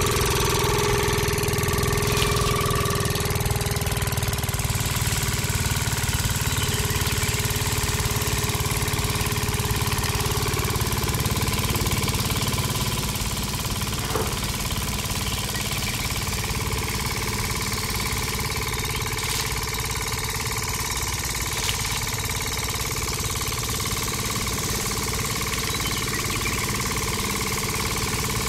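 Small engine-like motor running steadily, belt-driving a miniature threshing drum, a little quieter from about halfway through; a few faint ticks.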